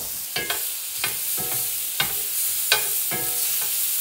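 Mushrooms and minced garlic sizzling in oil in a cast iron skillet. A metal spoon clinks and scrapes against the pan about seven times as they are stirred, loudest about three-quarters of the way through.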